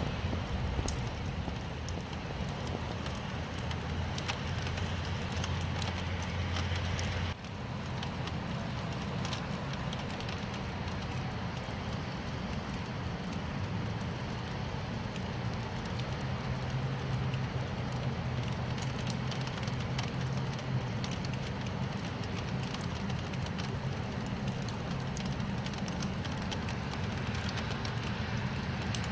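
Steady rain: a dense hiss of drops with many small crackling ticks, over a low rumble. The low rumble shifts abruptly about seven seconds in.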